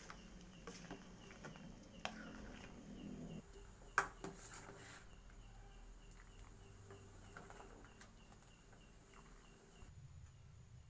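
Faint clinks and knocks of a plastic ladle against an aluminium pot and a ceramic bowl as soup is dished out, with one sharper knock about four seconds in. A faint, even high ticking runs underneath until near the end.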